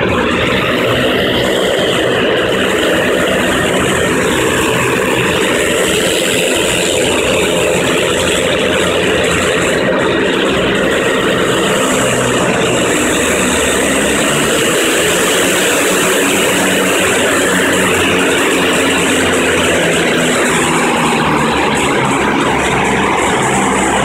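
Twin turboprop engines of a Grumman Turbine Goose amphibian running steadily after start-up, propellers turning, a loud even drone with a high turbine whine above it.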